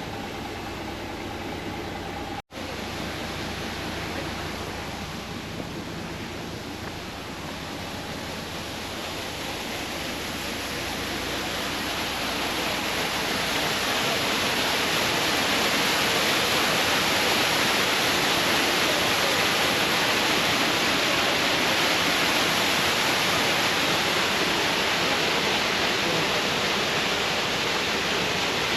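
Steady rushing water, growing louder over several seconds and then holding steady, after a brief low hum and a short cut.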